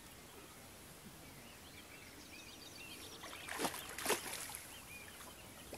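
Hooked carp splashing at the surface twice in quick succession, a little over halfway through, against a background of small birds chirping.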